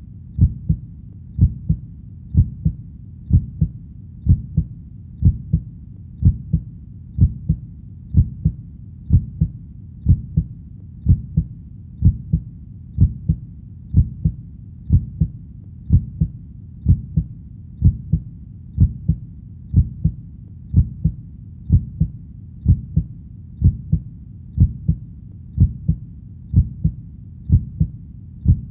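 A heartbeat: low, soft double thumps (lub-dub) repeating in a steady, even rhythm at about one beat a second.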